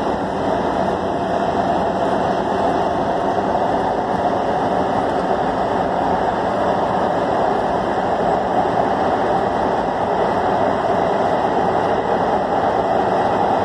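Metro Red Line subway train running through a tunnel, heard from inside the car: steady, loud wheel-on-rail and tunnel noise.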